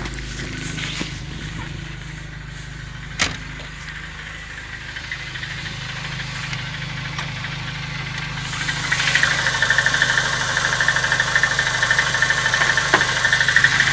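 VAZ-2109 engine idling cold with a fast metallic clatter from the valve tappet buckets, much louder from about eight and a half seconds in, plus one sharp click about three seconds in. The clatter comes from tappet buckets worn loose in their bores in the cylinder head. The owner puts it down partly to the cold engine's open clearances and expects it to fade once the engine is warm.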